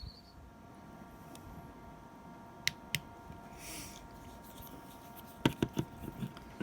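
Quiet indoor room tone with a faint steady hum. Two sharp clicks come about halfway through, then a brief hiss, and a quick cluster of clicks and knocks near the end, like something being handled.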